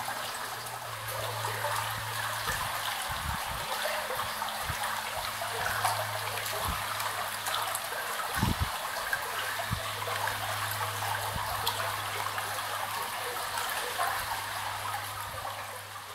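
Shallow stream water trickling and flowing through a corrugated steel culvert: a steady watery rush, with a steady low hum underneath. The sound fades out at the very end.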